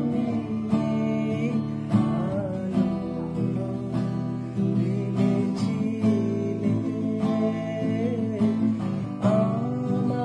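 Music: a strummed acoustic guitar accompaniment in a steady rhythm, under a melody line that slides and bends between notes.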